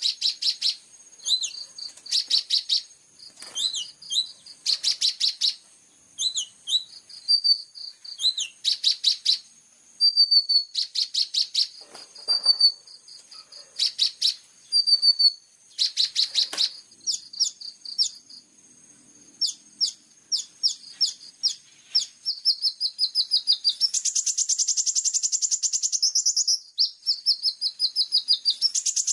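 Recorded small-songbird song of the kind used to train a kolibri ninja: high-pitched chirps and short whistled notes alternating with rapid buzzy trills. From about 24 seconds in it runs into a dense, fast continuous trill, over a faint steady high tone.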